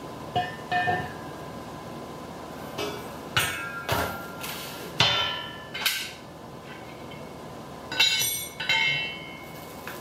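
Black steel parts of a hitch cargo carrier, the tubular basket halves and square-tube hitch bar, being handled and set down, knocking and clanking with a short metallic ring after each knock. About ten knocks come scattered through, the loudest a few seconds in and again near the end.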